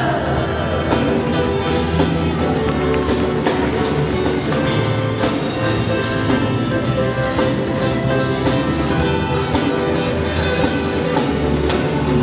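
Live band playing an instrumental passage on drum kit, electric bass, electric guitar and keyboard, with a steady drum beat. It opens on a note sliding down in pitch.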